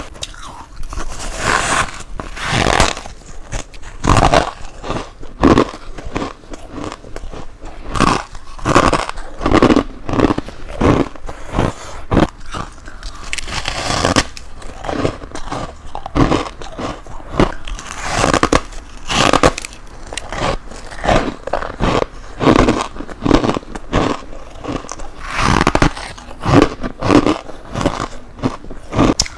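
Close-up bites into freezer frost ice, each followed by crunching and chewing, one after another many times; the frost gives a squeaky crunch.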